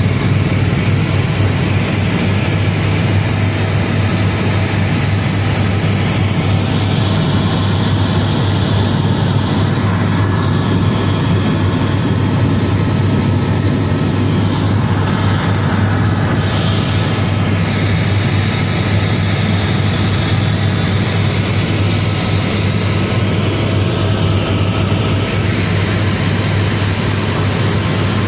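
Helicopter in flight heard from inside the cabin: a loud, steady low drone of the rotor and engine.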